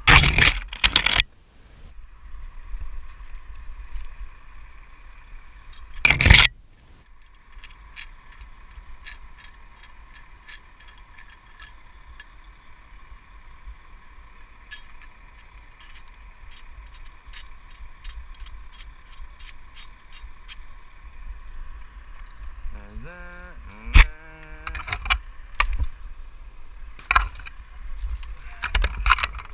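Tree climber's rigging hardware clinking and ticking, with rope and bark scraping as the lanyard and rope are handled in the tree, over a steady background hum. Two loud rushes of noise come near the start and about six seconds in.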